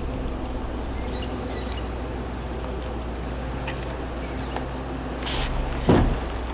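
A steady high-pitched insect drone over a low hum, with a short hiss about five seconds in and a single knock just after.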